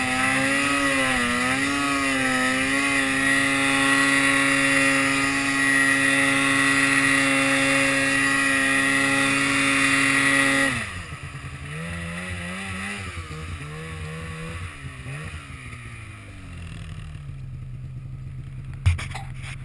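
Polaris PRO RMK snowmobile's two-stroke engine at high revs under load, climbing through deep powder. Its pitch wavers with the throttle for the first few seconds, then holds high and steady. About eleven seconds in the throttle is let off and the engine drops sharply, blips a few times, and settles to idle, with a sharp click near the end.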